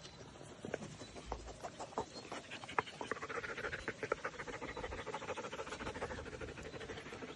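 Dog panting fast and evenly, several breaths a second, most steadily from about two seconds in: panting to cool off in the heat.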